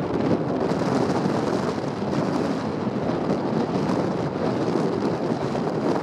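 Steady rushing wind noise buffeting the microphone.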